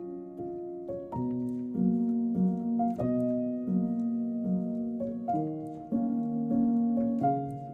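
Background music: gentle plucked and piano-like notes playing a slow melody over sustained chords.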